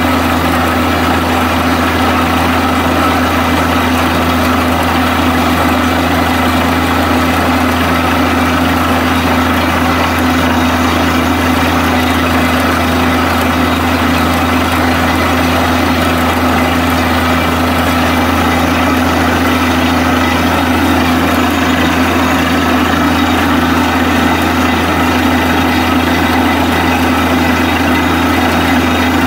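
Heavy engine of a borewell drilling rig running steadily at a constant loud drone, with no change in speed.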